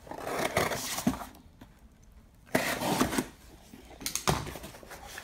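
Utility knife slicing along the packing tape of a cardboard box, a scraping rasp for about a second and a half, then the cardboard flaps pulled open with more scraping and a few sharp knocks.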